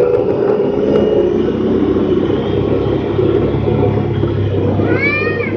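Honda Pioneer 1000-5 side-by-side's parallel-twin engine running steadily while driving along a gravel trail, with rumble from tyres and chassis, heard from inside the open cab. A short pitched call is heard near the end.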